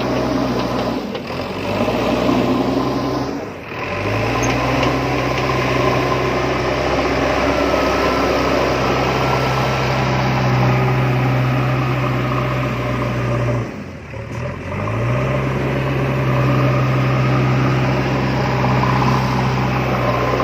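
Small electric DC motors of a cardboard RC road roller whirring steadily. They cut out briefly a few seconds in and again about two-thirds through, each time spinning back up to speed.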